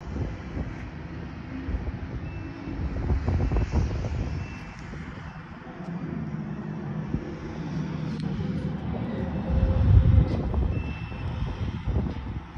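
Low, uneven engine rumble that swells about three seconds in and again around ten seconds.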